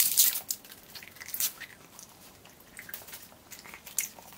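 Wet, irregular smacking and squelching of a mouth chewing a large wad of chewing gum, the loudest smack right at the start.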